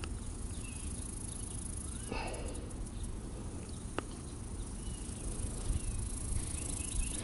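Insects chirping in short repeated calls over a low wind rumble on the microphone, with a brief rustle about two seconds in and a single sharp click about four seconds in.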